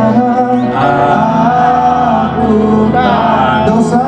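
Male voices singing a slow pop song into microphones over amplified musical accompaniment.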